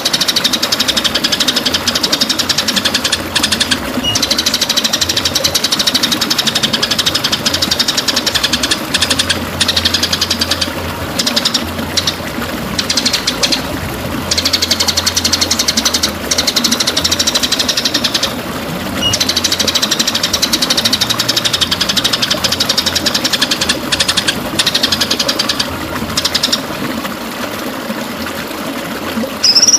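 A songbird's rapid, high rattling trill, delivered in long runs of several seconds broken by brief pauses.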